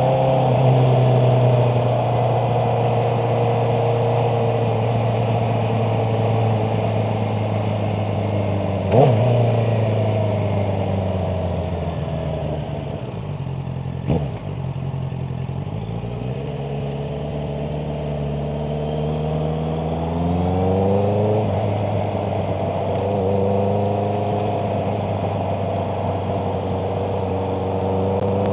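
Honda CBR650R inline-four motorcycle engine running under way. It holds a steady pitch, drops in pitch as the bike slows about halfway through, then climbs as it accelerates again and settles. Two brief sharp clicks come about nine and fourteen seconds in.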